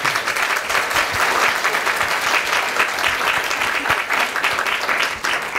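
Audience applauding, many hands clapping steadily and then fading out near the end.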